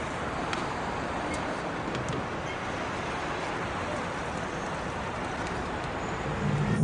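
Steady city street background noise, an even hiss like distant traffic, with a few faint ticks in the first two seconds.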